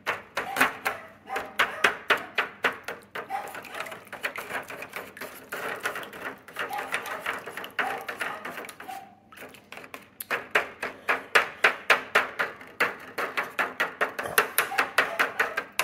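A white plastic spoon stirring soup base into warm water in an aluminium foil pan, clicking and scraping against the foil in rapid taps, several a second. The taps pause briefly about nine seconds in.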